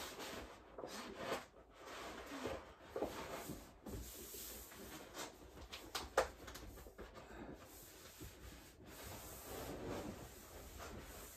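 Faint rubbing and rustling in a small room, with scattered light clicks and knocks and one sharper click about six seconds in.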